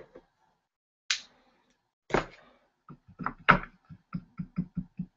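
Paintbrushes and painting supplies being handled at a hobby desk: a few separate knocks and clicks, then a quick run of light taps, about five a second, near the end.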